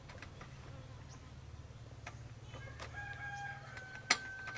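Handling and fitting the plastic parts of a child's tricycle: a few faint clicks, then one sharp snap about four seconds in. A faint, long, steady high tone sounds in the background from the second half on.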